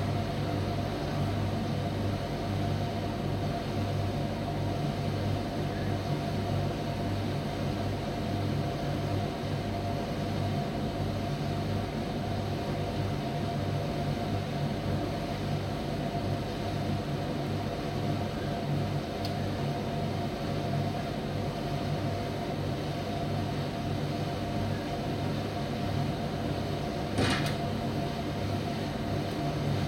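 Primus commercial tumble dryer running with a steady hum from its motor and fan, and a single sharp knock near the end.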